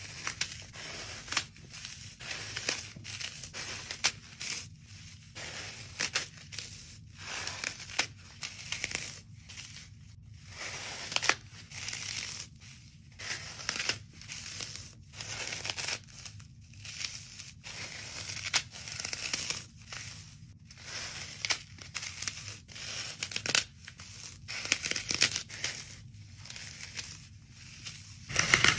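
Dry floral foam crumbled and crushed by hand: repeated crunchy crackles as the foam breaks apart, about one squeeze a second with short pauses between.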